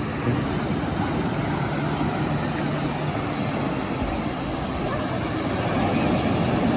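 An engine running steadily under a broad noisy rush, with a faint low hum through the first few seconds.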